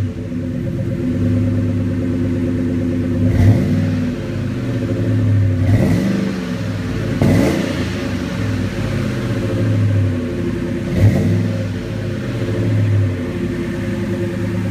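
1999 Ford Expedition's 4.6-litre V8 idling through a Thrush welded-in muffler, heard at the tailpipe. It is blipped four times, each rev rising and falling back to idle, at about three and a half, six, seven and eleven seconds in.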